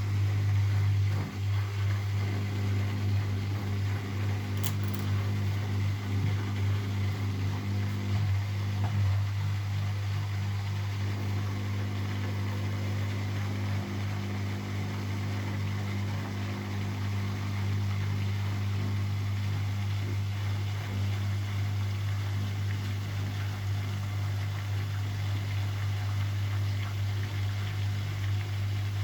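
Zanker EFX 4875 washing machine in its final spin, the drum and motor running with a steady low hum.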